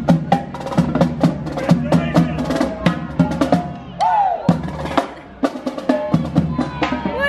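Marching drum line of snare and tenor drums playing a fast cadence of sharp strokes and rolls, easing off briefly a little after five seconds in before picking up again.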